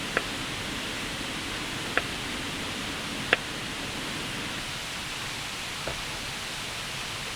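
Steady rushing of a nearby river, with a few light clinks over it, the sharpest about three seconds in.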